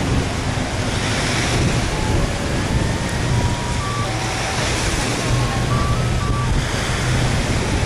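Steady loud rushing noise with a low hum beneath it, swelling twice, and a few faint short tones.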